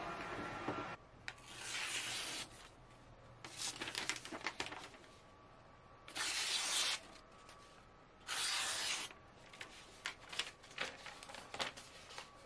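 A freshly sharpened Baccarat Damashiro kitchen knife slicing through a sheet of paper to test the edge: four separate hissing cuts of under a second each, then lighter paper crackles near the end. At the start, a wet sharpening machine's wheel runs for about a second before it cuts off.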